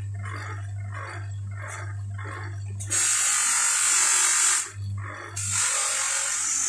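Bench grinder motor running with a steady hum. About three seconds in, the steel adjustable wrench is pressed against the abrasive wheel, giving a loud, even hissing grind. The grind breaks off briefly near the end and then starts again.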